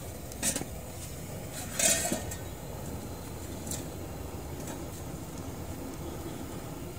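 A few light clinks and knocks of large aluminium pots and bowls being handled, the loudest about two seconds in. Under them is a steady outdoor background rumble.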